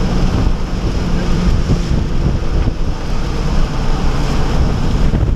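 Cabin sound of a 2011 Honda Civic Si under way on a wet track: its 2.0-litre four-cylinder engine pulling steadily beneath loud, even tyre hiss and road and wind noise.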